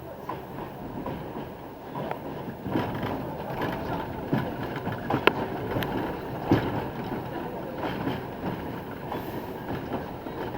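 R62A subway train running, heard from inside the front car: a steady rumble of wheels on rail broken by several sharp clacks over rail joints, the loudest two around the middle.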